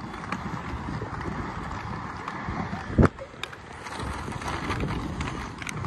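Inline skate wheels rolling over stone paving, a steady gritty rumble with small clicks, with wind on the microphone. A single sharp knock about three seconds in.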